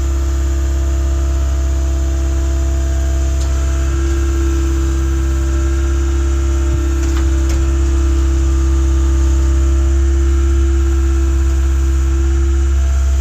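An engine running steadily with a constant low drone and an even hum.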